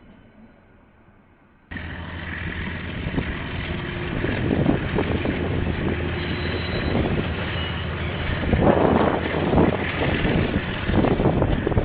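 Diesel train passing close by, with a steady low engine rumble and many wheel knocks and rattles, denser in the last few seconds. The sound starts abruptly about two seconds in.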